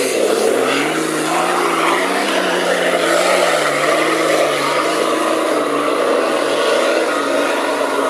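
Nissan Patrol Y60 4x4's engine revving hard under load as it climbs a steep muddy slope. The pitch rises at the start, then wavers up and down as the throttle is worked.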